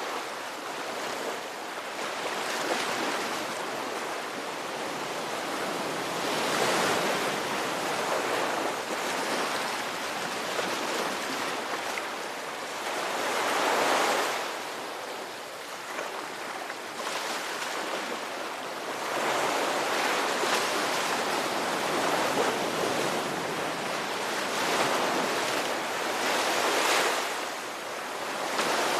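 Ocean surf: a continuous wash of breaking waves, swelling as a wave breaks every several seconds and easing back between them.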